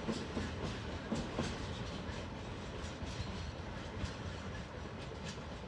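Freight train rolling past, its wagon wheels clacking irregularly over the rail joints over a steady rumble that eases slightly toward the end.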